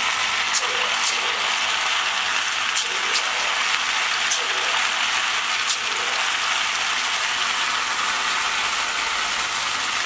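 Rice pakoda batter deep-frying in hot oil in an aluminium kadai: a steady, dense sizzle and crackle as the freshly dropped pieces bubble hard, with sharp pops every second or so.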